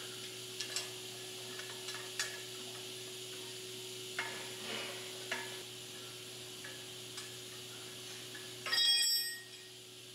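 Light metallic clinks and knocks from handling the steel plates and columns of a bolted hydraulic-press frame, with a louder clatter of metal that rings briefly about nine seconds in. A steady low hum runs underneath.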